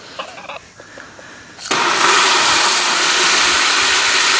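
Garden hose spray nozzle on a shower setting spraying water into a plastic bucket. The water comes on suddenly about a second and a half in as a loud, steady hiss.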